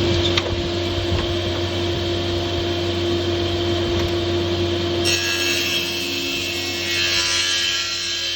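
Meclobo MA-15 multi-rip saw running and ripping wood, with a steady machine hum and tone. About five seconds in, a higher-pitched sawing sound joins in.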